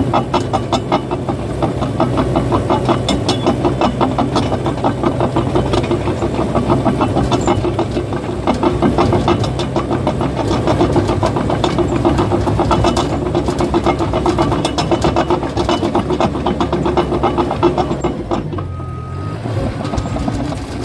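Caterpillar bulldozer's diesel engine running under load, with the steel tracks clanking in a fast, even rattle. Near the end the engine eases off and a high beeping tone sounds on and off.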